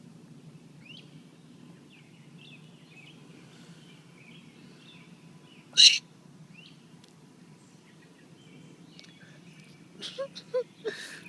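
A single loud, sharp hiccup from a man a little over halfway through, over faint bird chirps and a steady low outdoor background. A quick run of short, louder sounds follows near the end.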